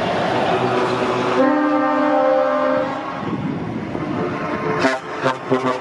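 Passing trucks with their diesel engines running. A truck air horn sounds one long blast about a second and a half in, then three short toots near the end.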